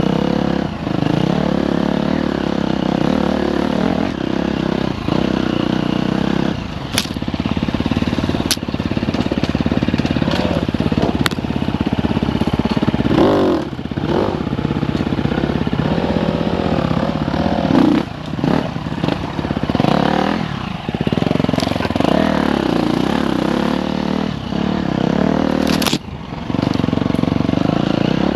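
Dirt bike engine running under load on a trail ride, the throttle repeatedly opening and closing so its pitch rises and falls, with a few sharp clicks and scrapes.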